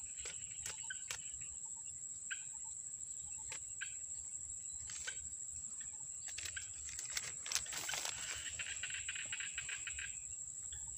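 Insects chirring steadily at a high pitch, with scattered small clicks and rustles of hands working in grass. A closer, pulsing chirr joins for about two seconds near the end.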